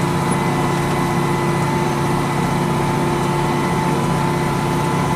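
Case 4690 tractor's diesel engine running steadily as the tractor drives along, heard from inside the cab: an even drone with a few fixed, humming tones over it.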